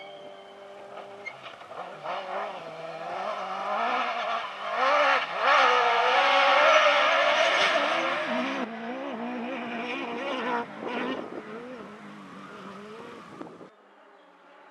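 Off-road rally car's engine revving hard as it drives past close by on a dirt track, its pitch rising and falling with the throttle. It is loudest about six to eight seconds in, then fades, and breaks off abruptly near the end.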